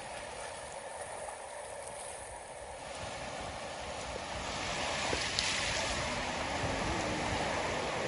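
Ocean surf breaking and washing over a rocky shore: a steady rush of water and foam that grows louder about halfway through.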